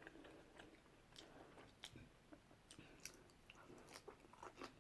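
Faint chewing and mouth noises of someone eating takeaway food, with scattered small crunches and clicks.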